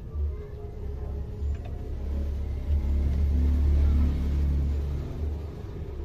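A motor vehicle passing: a low rumble that swells to its loudest about three to four seconds in, then fades.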